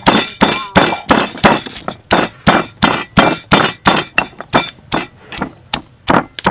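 Stone pestle pounding green chilies in a heavy stone mortar: sharp, even strokes of stone on stone at about three a second, crushing the chilies for a chili sauce.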